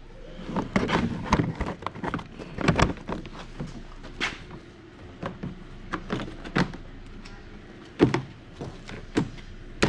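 Hands working a snowmobile's plastic side panel and wiring back into place: irregular clicks, knocks and plastic rattles, with one sharper knock about eight seconds in.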